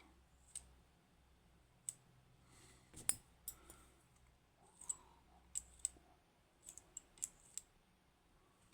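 Faint, scattered clicks of the small metal pins and parts of a disassembled Kaba Ace pin-tumbler lock being handled, about a dozen light ticks with a sharper one about three seconds in and small clusters near the end.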